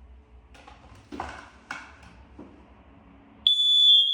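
A few light clicks and knocks, then about three and a half seconds in a smoke alarm sounds its test tone: a loud, steady, piercing high beep, set off by pressing its test button.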